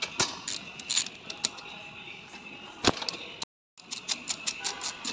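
Hand ratchet clicking as it turns a socket on an engine-bay bolt: a few scattered clicks, one sharp knock about three seconds in, then after a short gap a steady run of clicks at about five a second.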